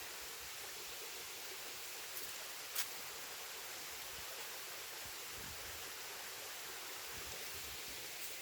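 Steady, even forest background hiss, with a short sharp click a little under three seconds in.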